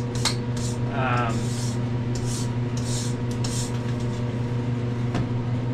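Long-handled brass-bristle brush sweeping the floor of a hot wood-fired pizza oven: a run of scratchy strokes about every half second, over a steady low hum.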